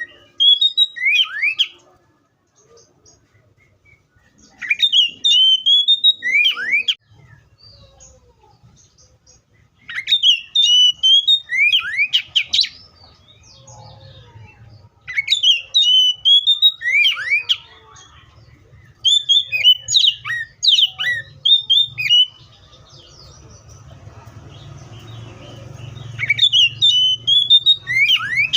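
Oriental magpie-robin singing: loud phrases of quick, rising and falling whistled notes, each a couple of seconds long, coming about every five seconds, six phrases in all.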